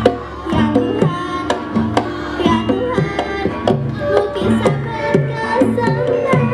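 Javanese gamelan ensemble playing: struck metal keys and gongs ringing at a steady pulse of about two strokes a second, with hand-drum strokes.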